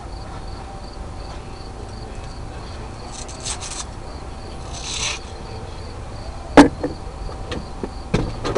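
Crickets chirping in a steady, even pulse under a faint steady hum, with two short bursts of hiss in the middle and one sharp knock about two-thirds of the way through, followed by a few clicks near the end.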